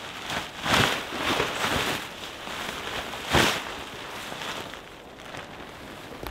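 A tarp rustling and flapping as it is shaken out and caught by the wind, in several quick swishes, the loudest about three and a half seconds in, then fading to a softer rustle.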